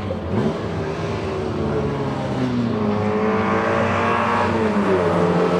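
Historic racing saloon cars, a Morris Minor among them, running hard on the circuit with their engines at high revs. The engine note rises briefly near the start, then sinks slowly through the second half as a car comes closer.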